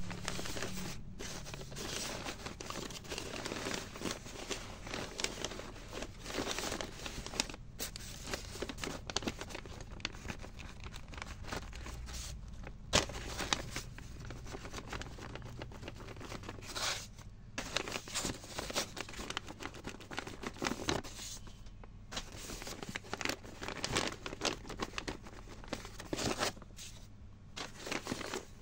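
Handmade paper blind bags being torn open and crinkled by hand: continuous rustling, crinkling and tearing of paper, with brief pauses every few seconds.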